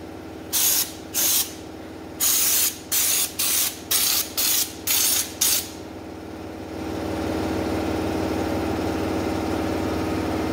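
A stone guard spray gun on a can, fired in about nine short hissing bursts in the first six seconds as coating is sprayed onto the car's underbody. The spraying then stops, and a steady motor hum grows louder and runs on.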